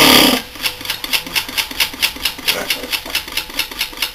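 Bulkon refrigerant compressor, run dry without oil, stops abruptly about a third of a second in as it seizes. A rapid, even clicking follows, about five clicks a second.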